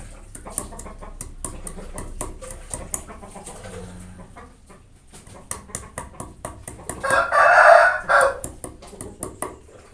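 Pestle knocking and grinding repeatedly in a mortar as kencur (aromatic ginger) is pounded to a paste. About seven seconds in, a chicken crows loudly for about a second.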